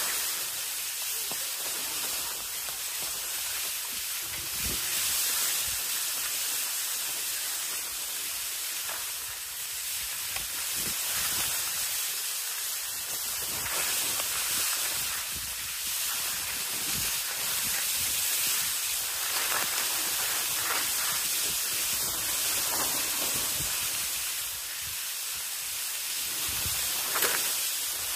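Skis sliding over packed, groomed snow on a downhill run: a steady hiss and scrape, with wind buffeting the microphone in irregular low thuds.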